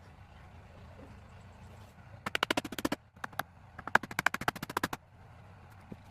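Two bursts of rapid, evenly spaced sharp knocks, each lasting about a second, at roughly fifteen strikes a second, with a short gap between them.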